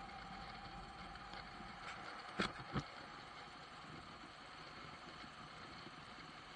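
Moto Guzzi V85 TT's air-cooled transverse V-twin running steadily in sixth gear at about 60 km/h, faint. Two sharp knocks come close together about two and a half seconds in.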